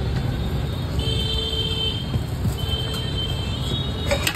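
Street ambience: a steady low traffic rumble, with a high-pitched vehicle horn or electronic beeper sounding twice for about a second each, and a couple of sharp clicks of steel utensils near the end.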